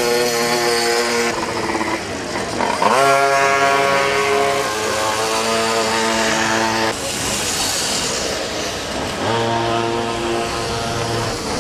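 Pocket bike engines racing around the track, revving up with a sharp rise in pitch about three seconds in and again near the end, holding steady high revs in between.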